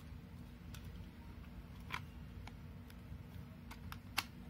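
Light clicks and taps of a clear plastic cassette tape case being handled, with two sharper clicks, one about two seconds in and one near the end, over a low steady hum.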